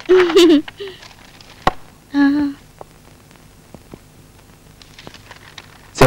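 A woman humming: a short wavering phrase at the start, then one held note about two seconds in. A sharp click falls between them, and the rest is quiet room tone.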